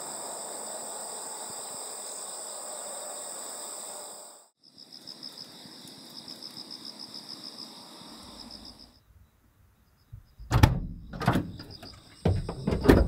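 Crickets and other insects chirping steadily, then a pulsing chirp. After a brief hush, several loud clunks and knocks as the Renault Kangoo's rear doors are opened.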